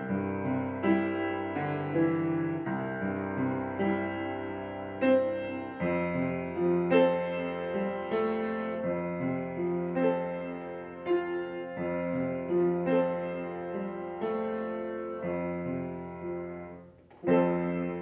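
Upright piano played solo: melody notes struck about once a second and held over sustained bass notes. Near the end the sound briefly breaks off, then a loud chord is struck and left ringing.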